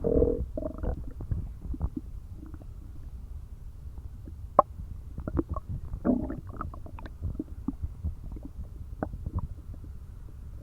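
An empty stomach growling and gurgling. A pitched growl comes at the start and again about six seconds in, over a steady low rumble with scattered short gurgling pops; the sharpest pop comes a little before the second growl.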